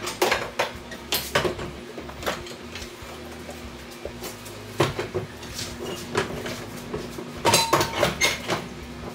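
Can-Am Maverick X3 bucket seat being lifted out and lowered, knocking and clanking against the car's body and floor in scattered bursts, the busiest clatter near the end. A faint steady hum runs underneath.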